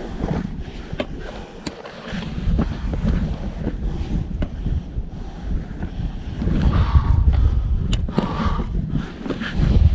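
Wind buffeting the microphone: a gusty low rumble that swells louder about two-thirds of the way in, with scattered sharp clicks and scuffs over it.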